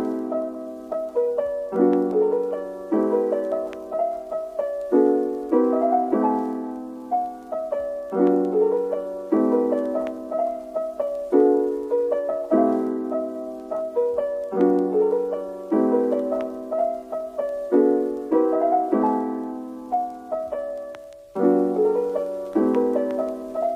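Background piano music: gentle chords struck in a repeating pattern, each note fading after it is played.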